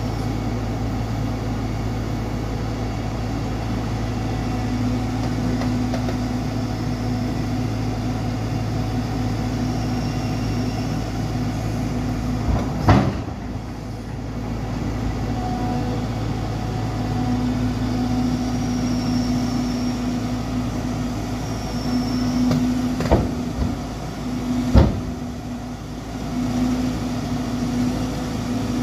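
Diesel engine of a Caterpillar hydraulic excavator running steadily, with a humming tone that swells and fades several times. There is a sharp knock about halfway through and two more near the end.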